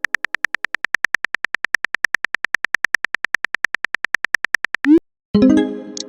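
Rapid, even clicking of a phone-keyboard typing sound effect, about nine clicks a second. It stops with a short rising swoosh about five seconds in, followed by a brief pitched alert tone that fades out.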